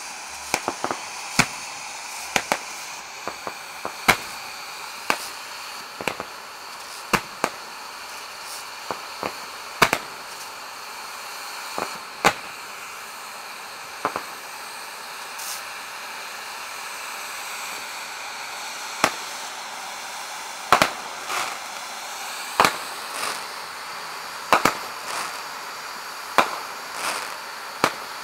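Fireworks going off: a steady hiss under sharp bangs and cracks at irregular intervals, often one or two a second, with a lull of a few seconds about halfway through.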